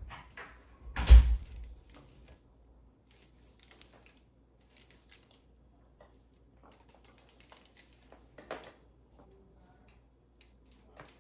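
A loud thump on the microphone about a second in, then faint scattered rustles and small clicks of hands working through hair, with one short noisy burst near the end.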